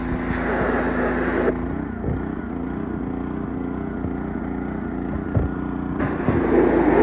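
Gas-engine pressure washer running steadily, its wand spraying with a hiss that stops about a second and a half in and starts again near the end.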